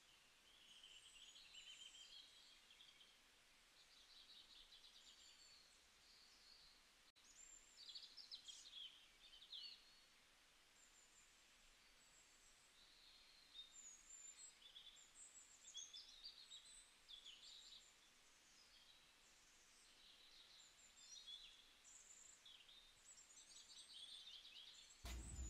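Faint birdsong: small birds chirping and trilling on and off over a quiet background hiss.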